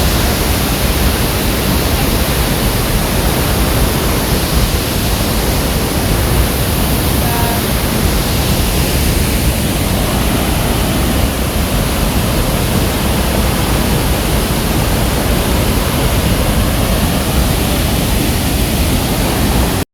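Large waterfall's water crashing down, a loud, steady rushing roar heard up close.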